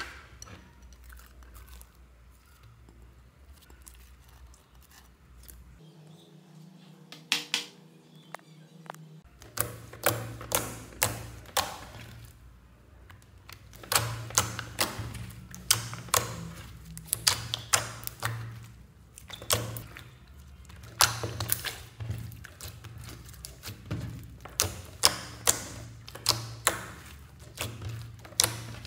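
Hands squeezing and kneading a large mass of glossy slime, giving sharp clicks and pops of trapped air. They are sparse at first and from about ten seconds in come one or two a second.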